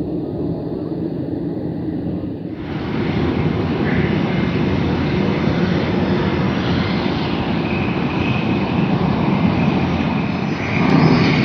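Aircraft engines running, a steady rushing noise that changes abruptly about two and a half seconds in, becoming louder and brighter, and rises again near the end.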